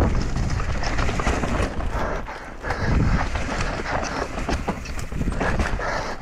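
Enduro mountain bike descending a rough dirt trail at speed: tyres crunching over loose dirt and ruts, with a quick string of knocks and rattles from the bike. It eases briefly about two and a half seconds in, then picks up again.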